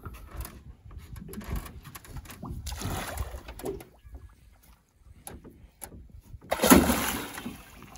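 Water splashing and sloshing against the side of a boat as a peacock bass is held in the river and released. A louder rush of splashing comes about six and a half seconds in.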